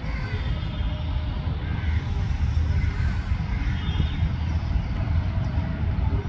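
Steady low rumble of outdoor background noise, with a few faint high chirps over it.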